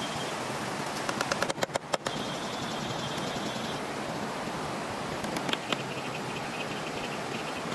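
A stream rushing steadily over rocks. About a second and a half in comes a quick run of sharp knocks, and a couple more follow later: a knife striking a bamboo pole.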